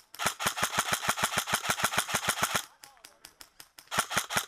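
Airsoft electric rifle firing full-auto, a rapid even rattle of about ten shots a second: one burst of about two and a half seconds, then a short pause and another burst starting near the end.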